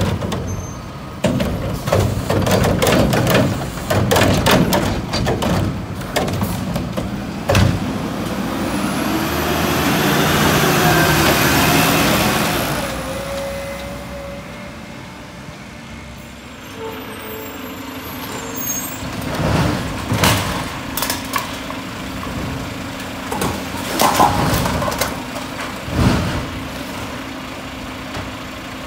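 Garbage trucks emptying curbside carts, with engines running throughout. In the first several seconds carts clatter and bang repeatedly as they are tipped. Around ten seconds in comes a long, loud hiss with a rising whine as the truck pulls away. Later a Mack truck with a Heil automated side-loading arm runs with a steady hum, and sharp bangs come from the arm handling a cart near the end.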